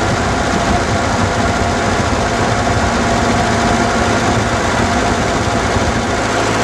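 1940 Ford 9N tractor's four-cylinder flathead engine running steadily.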